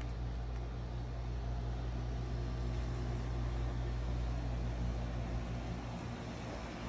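A steady low mechanical hum, even and unbroken.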